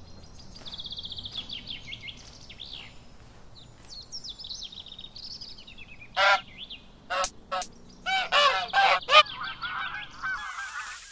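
Birds calling: high, twittering chirps for the first few seconds, then louder, lower calls in short bouts from about six seconds in, several in quick succession around eight to nine seconds.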